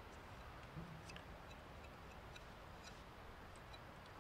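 Near silence, with a few faint scattered ticks.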